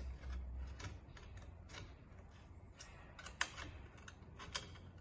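Hex key working a mounting bolt into an aluminium extrusion frame: faint, irregular small metal clicks and ticks, with two slightly louder clicks past the middle.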